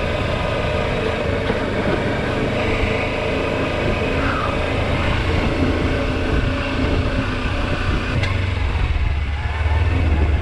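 Kawasaki Versys-X 300 parallel-twin engine running steadily while the bike rolls over a loose, rocky trail, with the rumble of tyres on rock and gravel. The engine note gets a little louder near the end.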